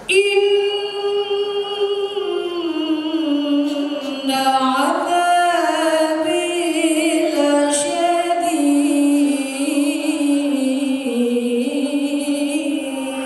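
A woman singing solo into a microphone: a slow melody of long held, ornamented notes with vibrato, drifting downward overall.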